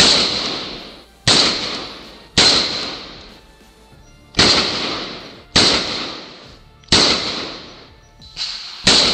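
A series of pistol shots from a Grand Power K100, about one a second with a short pause in the middle. Each shot is a sharp crack followed by a tail of about a second that fades away.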